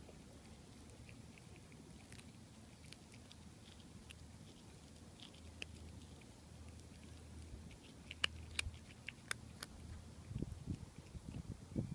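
A cat chewing and crunching on a small bird, bones included: faint scattered clicks of teeth, with a run of sharper crunches about eight to ten seconds in. A few dull thumps near the end.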